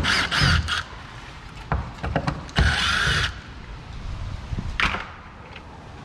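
Cordless drill driver whirring for under a second on a screw in a door's strike plate, among scattered clicks and knocks of the screws and plate being handled.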